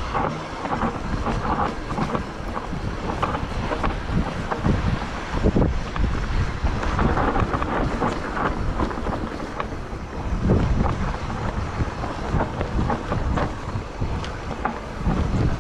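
A mountain bike riding fast down a dirt trail: wind buffets the microphone while the tyres rumble over the ground and the bike knocks and rattles over bumps again and again.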